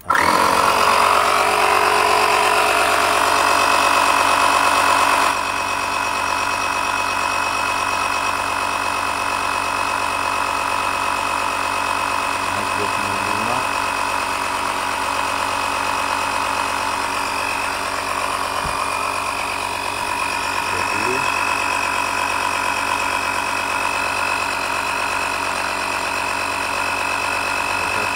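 Portable 12-volt tyre-inflator compressor switching on suddenly and running steadily with a constant whine, pumping air into a car tyre toward a preset 34 PSI. It drops slightly in level about five seconds in, then runs on evenly.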